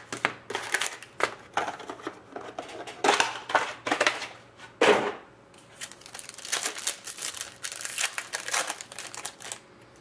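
Foil trading-card pack wrappers crinkling and being torn open by hand, a dense run of irregular crackles that stops shortly before the end.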